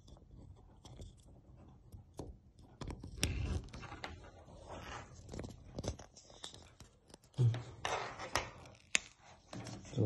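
Handling noise: fingers rubbing and scraping close to the microphone, with irregular clicks and knocks as a USB-C-to-HDMI adapter and its cable are handled. The clicks come more often and louder in the second half.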